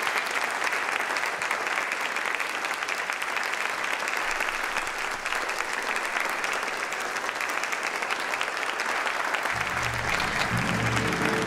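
Audience applauding steadily. About nine and a half seconds in, music with low sustained notes comes in beneath the applause.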